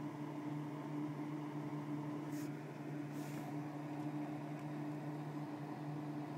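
Steady low background hum, with two brief soft rustles of handling noise about two and three seconds in.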